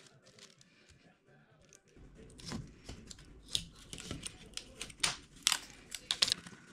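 Thin plywood fuselage doublers and formers being handled and fitted together on a paper plan: a string of light wooden clacks and taps, starting about two seconds in, with the loudest ones near the end.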